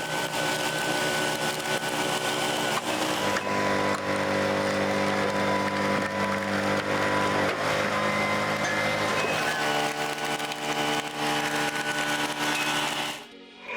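Homemade log splitter's motor running steadily with a droning hum and a thin whine, its pitch shifting a few times as the load changes. It cuts off abruptly near the end.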